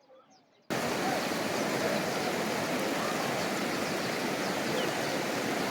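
Loud, steady rush of fast-flowing floodwater, cutting in abruptly under a second in after near-quiet, with faint chirps in it.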